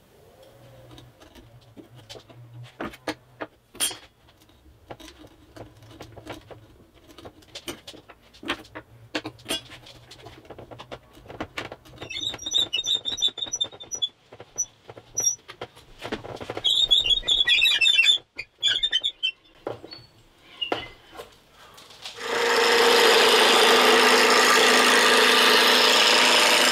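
An auger bit boring into a laminated oak board: irregular clicks and creaks, with two stretches of high squealing as the bit cuts. About 22 seconds in, a loud, steady rushing noise takes over: a wood lathe spinning a piece of wood with a turning tool cutting it.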